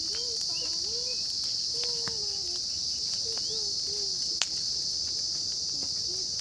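A steady, high-pitched chorus of insects such as crickets or cicadas. A few sharp clicks cut in, one louder about four and a half seconds in.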